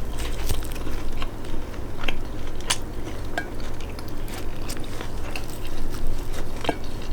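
A person chewing a mouthful of lettuce wrap filled with chicken, black beans, rice and avocado, with crisp lettuce crunching and irregular wet mouth clicks.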